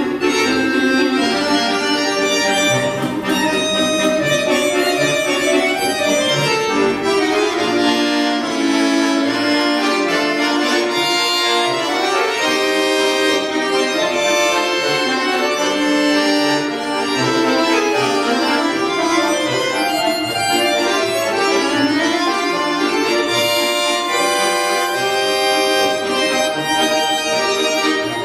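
Solo chromatic button accordion (bayan) playing a waltz: a busy, running melody over short bass notes that recur at regular spacing.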